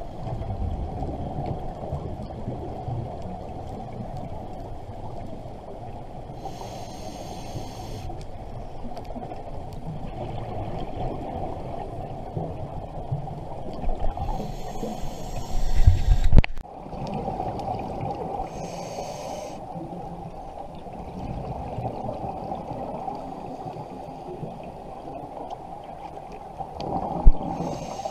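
Scuba diver breathing through a regulator, heard through an underwater camera housing: a steady muffled rumble of water, with a hiss and rush of exhaled bubbles every several seconds, the loudest about halfway through.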